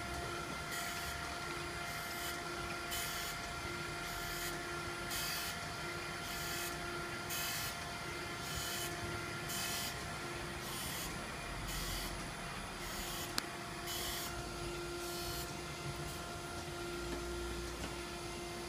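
Okamoto PSG-52DX surface grinder running a test cut after maintenance: a steady spindle hum under a short grinding hiss, repeated about every 0.7 s as the table carries the metal block under the wheel. The hissing stops near the end, leaving the hum, and there is one sharp click about two-thirds of the way through.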